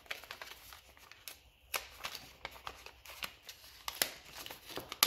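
Small paper parts envelope from a fuel pump rebuild kit being handled and opened by hand: light rustling with a run of short, sharp crinkles and clicks.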